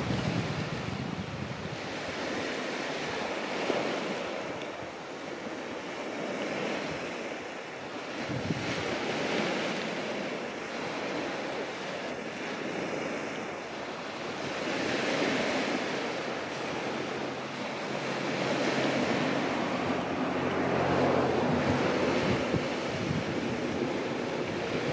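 Sea waves washing onto the shore, swelling and fading every few seconds, with wind buffeting the microphone.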